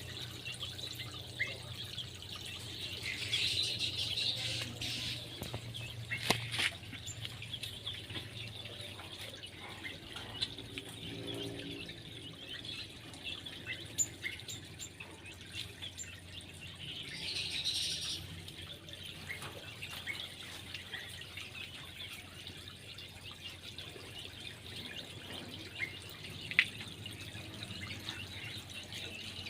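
Small birds chirping and calling in short scattered notes, with two brief louder bursts of calls, over a faint steady drip and trickle of water.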